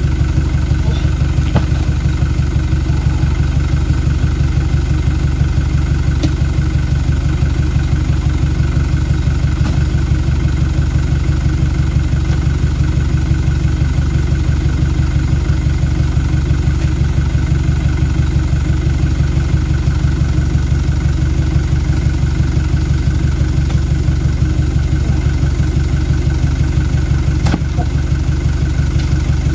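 Truck engine idling steadily, a low, even throb that does not change.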